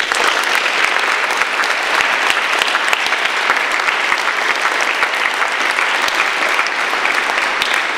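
A large audience of school students applauding: dense, steady clapping.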